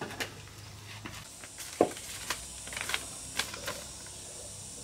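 Paper rustling and crinkling in a few short handlings as a letter is taken out and unfolded, with a soft thump a little under two seconds in.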